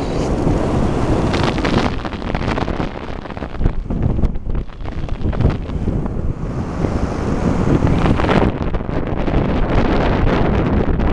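Wind buffeting the microphone of a camera held out of a moving car's window, with the car's road noise beneath, gusting unevenly.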